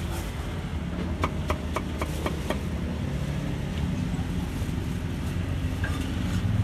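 Cleaver chopping on a wooden chopping block: a quick run of sharp knocks, a few a second, that stops about two and a half seconds in. Under it runs the steady low hum of an idling engine.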